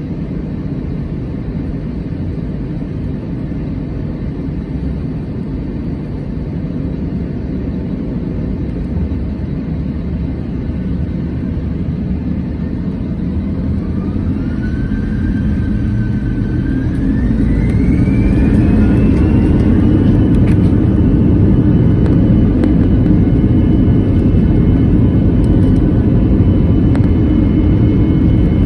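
Airbus A321-200's twin jet engines heard from inside the cabin: a steady low rumble at first, then about halfway through a rising whine as the engines spool up to takeoff thrust. The whine levels off into a loud, steady high whine over the rumble as the airliner accelerates down the runway.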